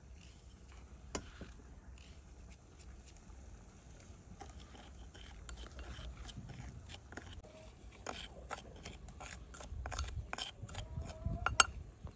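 Small wooden spoon scraping and tapping against a clay bowl as dry ground spices are stirred together: a run of short scratchy clicks that gets busier toward the end, with one sharp tap near the end.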